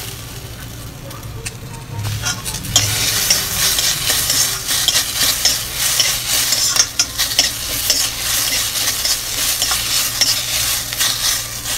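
Sliced onions, green chillies and tomatoes sizzling in hot oil in a kadhai while a metal spatula stirs and tosses them, scraping against the pan. The sizzling and scraping get louder about two seconds in.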